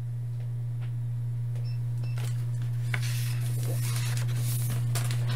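A steady low hum, with faint papery rustling of a hardcover picture book's page being turned in the second half.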